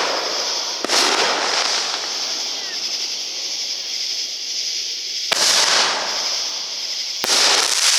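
Consumer fireworks going off: three sharp bangs, about a second in, a little past five seconds and near the end, each followed by about a second of crackling hiss, with a steady hiss between them.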